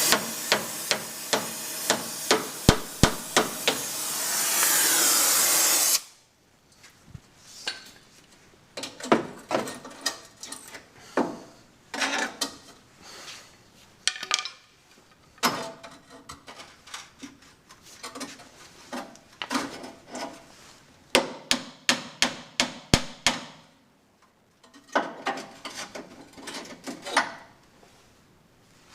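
A loud steady hiss with sharp knocks over it, which cuts off suddenly about six seconds in. After that come irregular strikes of a hammer on the truck's sheet-metal body, in quick runs with short pauses between them.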